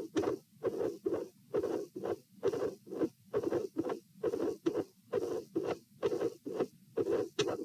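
Human heartbeat heard at the pulmonary area: a regular beat of about 70 a minute. Each beat is a longer sound, the first heart sound running into a midsystolic murmur, followed by a shorter second heart sound. The murmur is heard in a heart with a dilated aortic root.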